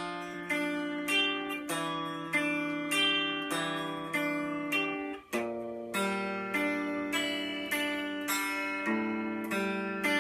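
Electric guitar played through an amplifier, slowly picking single notes across three strings in a repeating arpeggio pattern, about one note every 0.6 s, each note left ringing into the next. About five seconds in there is a brief gap, and the pattern moves to a new, lower chord shape.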